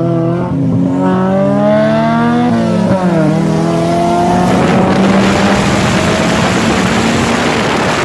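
Car engine accelerating hard, its pitch climbing, dropping at a gear change about three seconds in, then climbing again. From about halfway through, a loud rushing wind noise takes over and drowns it.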